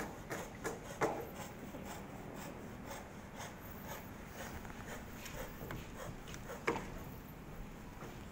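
Faint scattered knocks and rubbing, with two sharper knocks, one about a second in and one about two-thirds of the way through.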